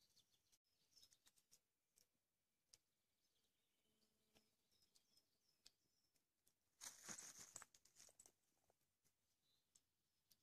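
Near silence: a wood campfire crackling faintly in scattered small clicks, with a few faint high bird chirps and a brief rustle about seven seconds in.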